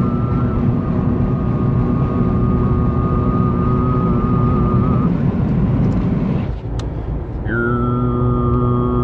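Overtone singing: a man's voice holds a low drone with a high, whistling overtone that wavers above it, over steady car road noise heard from inside the cabin. The note breaks off about six and a half seconds in, and a new one starts a second later with a short downward slide.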